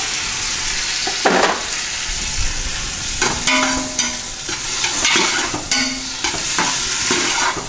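Diced tomatoes and onions sizzling in a metal stockpot while a long metal spoon stirs them, scraping and clinking against the pot several times.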